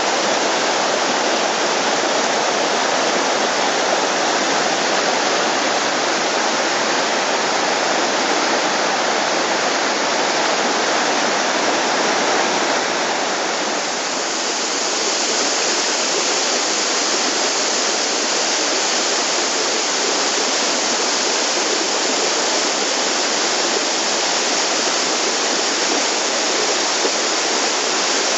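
Rushing water of a mountain creek tumbling over rock cascades, then a waterfall pouring down a rock ledge. The rush is steady throughout. About halfway through it dips briefly and becomes brighter and hissier as the falls take over.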